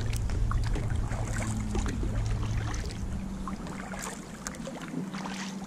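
Kayak paddling: water splashing and dripping off the paddle blade and lapping at the hull, with a few faint drip ticks over a steady low hum.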